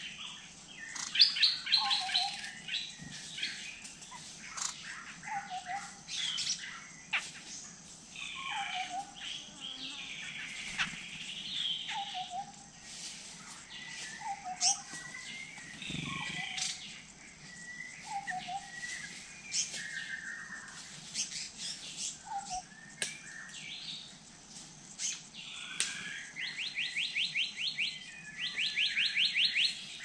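Several forest birds calling together. A short low note repeats every couple of seconds under assorted chirps and whistled calls, and two rapid trills come near the end.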